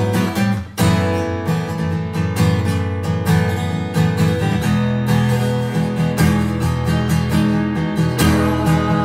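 Acoustic guitar strumming chords in an instrumental break of a song, with a short drop in loudness under a second in.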